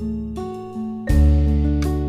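Instrumental background music with a deep bass line and held notes; a new loud chord comes in about a second in.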